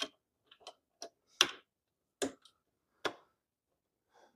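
Metal mounting hardware (bolt, washer and nut) clicking and knocking against a soundbar's steel bracket and an ATV's front rack while the bolt is lined up in its hole: about half a dozen irregular sharp clicks, the loudest about a second and a half in.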